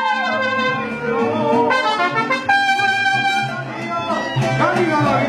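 Mariachi band playing, trumpets leading with guitars behind. A dog howls along with the trumpets in sliding, wavering wails, near the start and again near the end.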